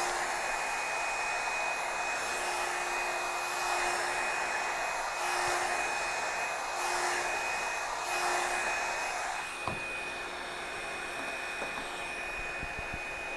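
Revlon One Step hot-air brush hair dryer running with a steady whine and rush of air, swelling and easing as it is worked through a section of hair. About ten seconds in there is a click, after which it runs a little quieter.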